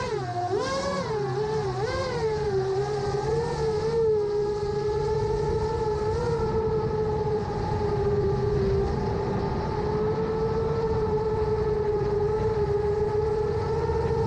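A 7-inch FPV quadcopter's F90 2806-class brushless motors whining in flight. The pitch swings up and down with the throttle for the first few seconds, then settles to a nearly steady cruise.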